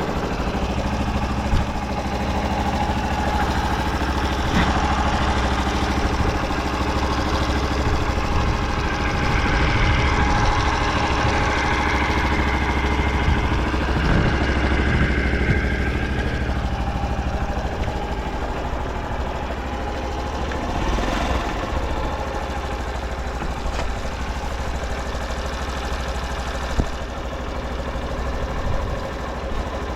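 Honda Super Cub 50 Pro's small air-cooled four-stroke single-cylinder engine idling steadily, running with no abnormal noise.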